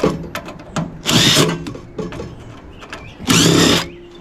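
Cordless power drill or driver running in two short bursts, backing out screws from a microwave's sheet-steel chassis, with small clicks and rattles of metal parts between the bursts.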